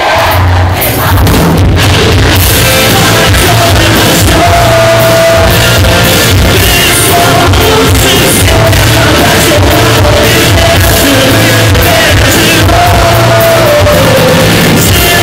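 Rock band playing live and loud in a large hall: drums and bass under a sung vocal line with long held notes.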